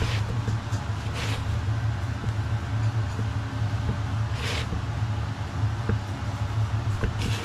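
A steady low hum like a running motor or fan, with a few brief soft hissing rustles over it.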